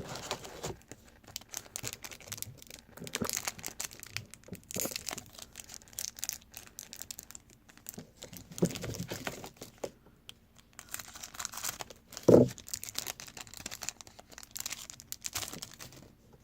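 Crinkling and tearing of a trading-card pack wrapper as it is opened, with cards being handled; one louder knock about twelve seconds in.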